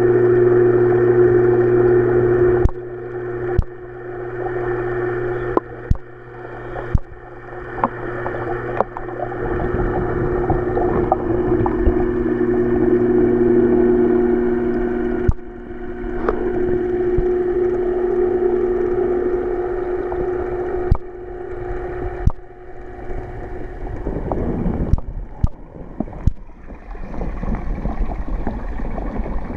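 Steady multi-tone hum of the koi pond's water pump, heard through the water, with sharp knocks now and then. Near the end the hum gives way to the even splashing rush of the pond's waterfall.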